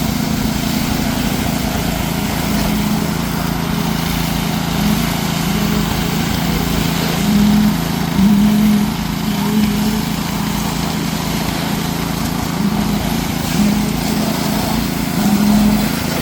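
Heavy diesel truck engine running steadily, swelling louder briefly a few times in the second half.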